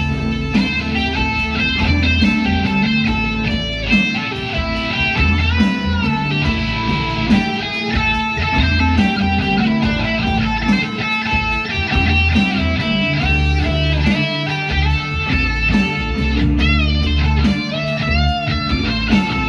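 Music led by guitar over a steady bass line, with a few bent notes near the end.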